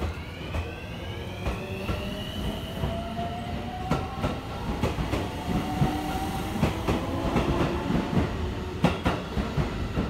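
A JR West 223 series 1000 electric train's inverter-driven traction motors whine as it accelerates away from the platform, the whine rising steadily in pitch over a low rolling rumble. From about four seconds in, its wheels clack over rail joints, the clacks coming closer together as the train gathers speed.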